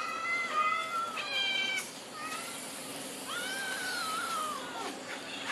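Cats meowing for the food being mixed: several long, drawn-out meows, one after another.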